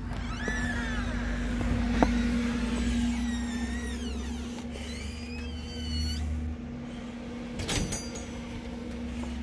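A door latch clicking and a door's hinges squeaking in several drawn-out creaks as it swings, over a steady low hum.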